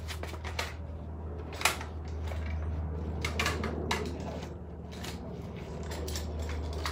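Scattered light clicks and metallic clinks of hand tools and parts being handled, the sharpest about one and a half seconds in and a quick cluster about three and a half seconds in, over a steady low hum.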